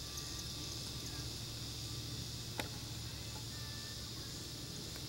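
Steady evening insect chorus, a high-pitched continuous drone, with one sharp click about two and a half seconds in.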